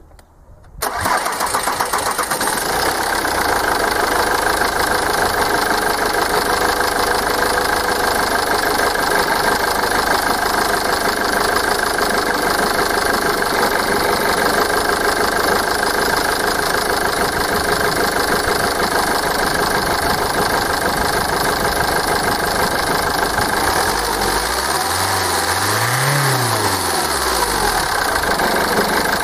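Ford TDCi four-cylinder common-rail diesel engine starting about a second in and settling into a steady idle, with one rise and fall of revs near the end. It runs smoothly on a freshly rebuilt Delphi injector that was refitted without coding, a sign that the repair has worked.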